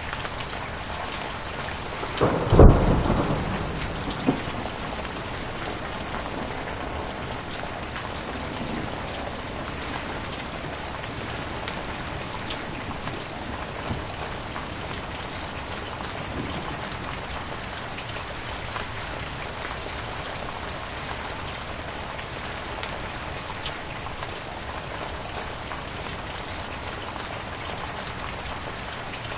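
Heavy rain falling steadily, with a sudden loud thunderclap about two seconds in that rumbles away over the next two seconds.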